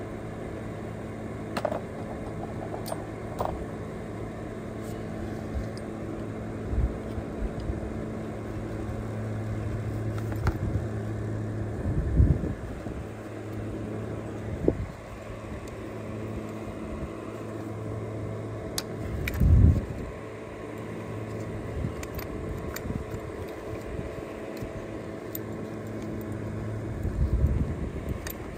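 Battery-powered portable fan running with a steady hum, with scattered small clicks of tools and parts being handled on a hydraulic cab-jack pump and a few low thumps.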